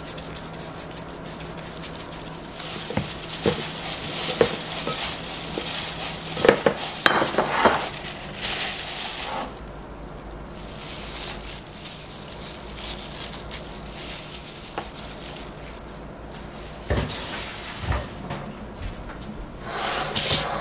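A plastic-gloved hand tossing seasoned vegetables in a glass mixing bowl: steady crinkling and squishing with small clicks against the glass. There are two dull knocks near the end.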